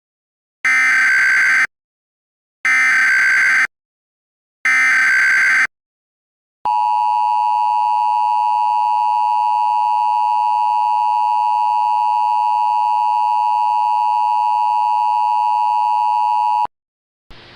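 Emergency Alert System SAME header, three bursts of screechy digital data about a second long, a second apart, followed by the EAS two-tone attention signal held steady for about ten seconds.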